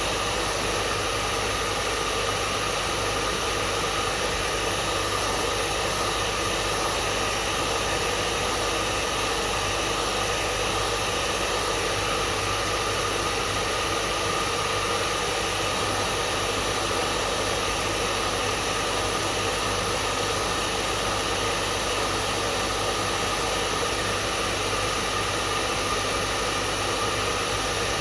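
Hair dryer running steadily: an even rushing air noise with a faint low hum, unchanging throughout.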